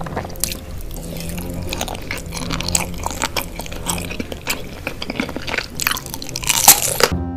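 Close-miked mukbang eating sounds: wet chewing, smacking and slurping of a spicy noodle dish with baby octopus, in a stream of quick clicks and squishes. The loudest smacks come about six and a half seconds in.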